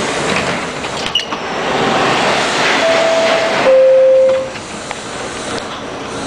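Subway train running past through an underground station, a steady rumble and rush of wheels on rail. Two brief steady tones sound about three seconds in, the second and lower one the loudest thing, and then the train noise eases off.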